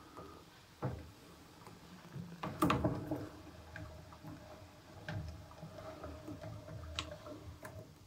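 Wringer rollers on a Hoover 0307 washing machine drawing wet laundry through: scattered clicks and knocks, with a louder cluster about two and a half seconds in. A faint steady tone runs from then until near the end.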